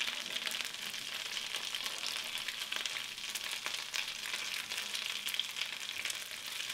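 Food sizzling in a frying pan: a steady hiss crowded with fine crackles and spits.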